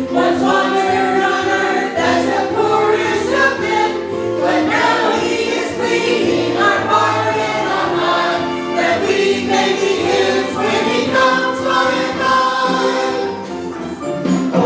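Congregation or choir singing a hymn together with instrumental accompaniment.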